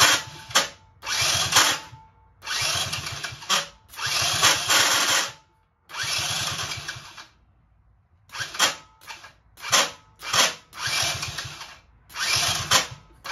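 Electric starter motor cranking a Kazuma Meerkat quad's 50cc engine in about a dozen short bursts, mostly a second or so each with a few quick blips, the engine's compressions giving a fast pulsing beat under the whir. The engine is being turned over for a compression test, and the cranking does not sound right to the owner, who suspects a bad starter or internal engine damage.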